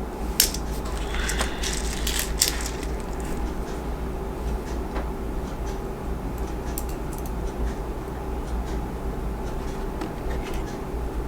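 Small plastic and metal kit parts clicking and ticking as they are handled and a screw is driven in by hand, with the sharpest clicks near the start, over a steady low hum.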